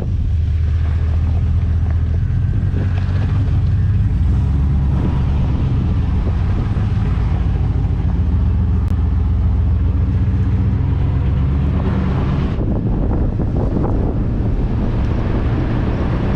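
Pickup truck engine running steadily at low revs in four-wheel-drive low, first gear, as the truck crawls over rough trail.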